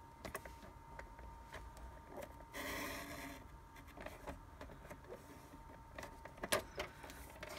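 Stampin' Trimmer paper trimmer: the blade carriage slides down its rail about three seconds in, cutting through cardstock for under a second, with faint clicks and taps of the trimmer and paper before and after.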